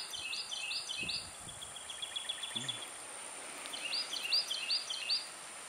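A bird singing outdoors: a phrase of four quick, high repeated notes, a short fast trill, then another four-note phrase about four seconds in.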